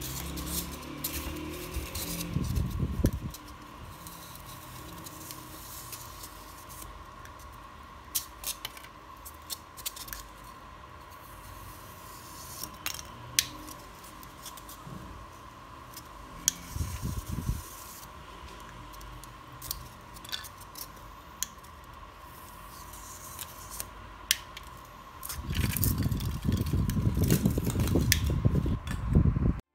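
Polystyrene foam being cut with a homemade hot wire cutter and handled: scattered clicks and crackles, with heavier rustling and rubbing a few seconds in, midway, and through the last few seconds. A faint steady whine sits underneath.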